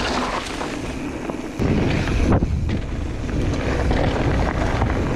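Wind buffeting the action camera's microphone as a mountain bike rides fast down a dry dirt trail, with the tyres rolling and crackling over dirt and dry leaves. The low wind rumble grows louder about a second and a half in.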